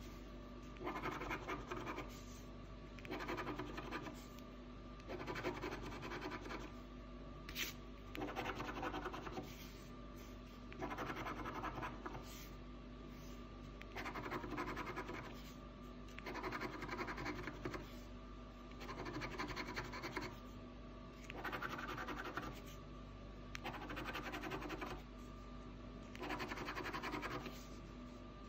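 Scratch-off lottery ticket having its coating scraped off in repeated short bouts of scratching, each lasting about a second and coming every second or two, with brief pauses between.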